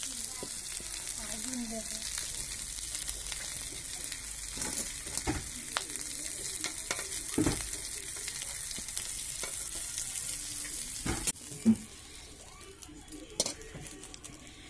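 Fish frying in hot oil in a blackened wok: a steady sizzle, with a metal spatula knocking and scraping against the pan several times. About eleven seconds in, the sizzle drops to a much quieter hiss.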